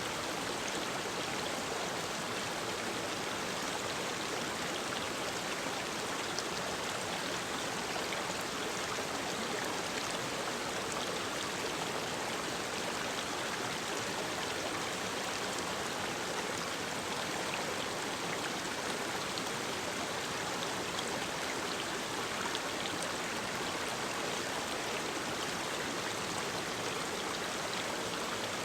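Mountain stream running over rocks: a steady rush of flowing water with small splashes and gurgles, even in level throughout.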